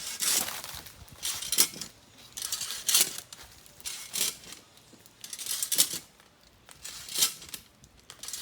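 Coconut tree climbing device scraping and clinking against the trunk as it is worked up the tree, about one stroke every second and a half.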